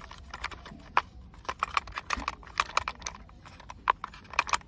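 Hard plastic body parts of a toy CNG auto rickshaw clicking and knocking against each other as two halves are pushed and fitted onto their locating points: a string of irregular sharp clicks, a few a second.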